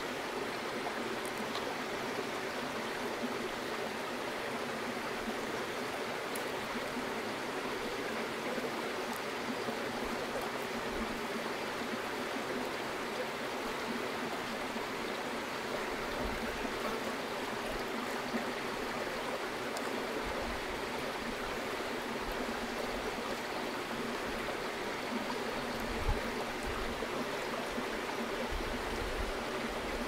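Mountain stream rushing steadily, a continuous even wash of flowing water, with a soft bump near the end.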